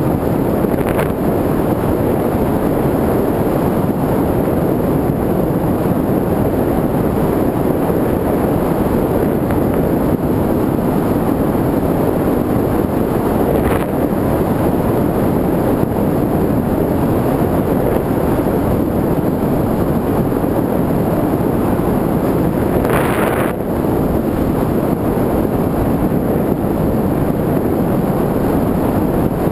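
Steady rush of wind over the onboard camera's microphone on an FPV model aircraft in flight, with a brief, brighter hiss about three quarters of the way through.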